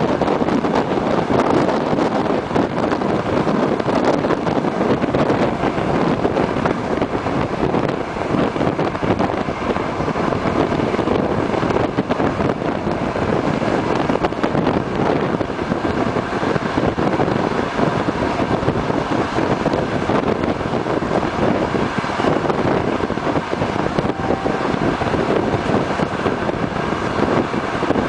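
Passenger train running at a steady speed, a continuous rumble of wheels on the rails mixed with wind noise on the microphone.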